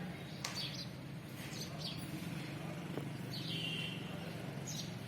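Birds chirping: a few short, separate calls, with a longer buzzy call a little past the middle, over a steady low hum.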